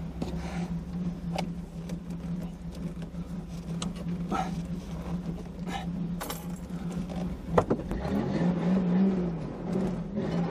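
Pickup truck engine running steadily as heard inside the cab, its note rising and falling from about eight seconds in as the driver works the throttle to back off the rocks. Scattered clicks and knocks from the truck, with a sharper knock a little before the revving starts.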